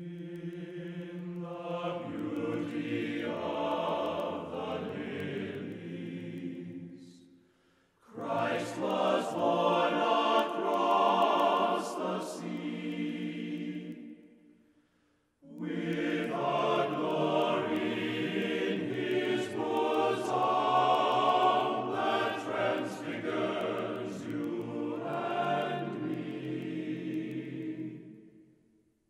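Choral music: voices singing sustained chords in three long phrases, each fading out into a short pause before the next.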